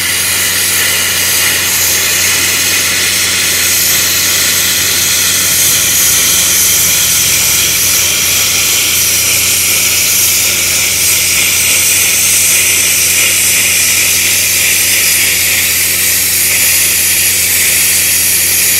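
Tenya CUT 50 plasma cutter's arc cutting a long straight line through 6 mm steel plate: a loud, steady hiss of the plasma jet with a low, even hum beneath it.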